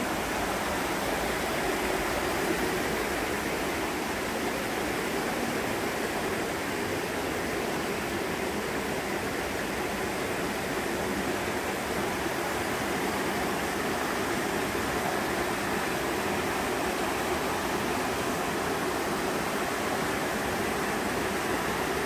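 Rocky mountain stream rushing over boulders and small cascades: a steady, unbroken rush of water.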